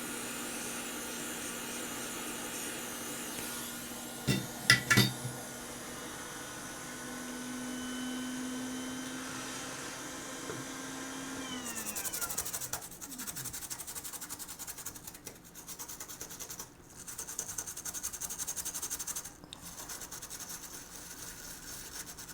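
Hot air rework station blowing with a steady hiss and hum, with a few sharp clicks about four to five seconds in. About twelve seconds in its fan winds down with falling pitch. Then come repeated scratchy rubbing strokes as flux is scrubbed off the warmed motherboard.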